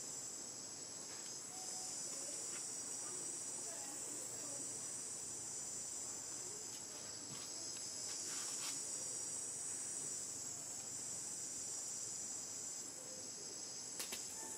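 Steady, high-pitched chorus of insects such as crickets or cicadas, with a couple of brief clicks, one about eight seconds in and one near the end.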